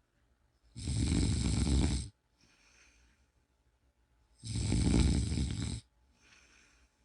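A person snoring in a steady rhythm: two loud snores, each a little over a second long and about four seconds apart, with a much fainter breath after each.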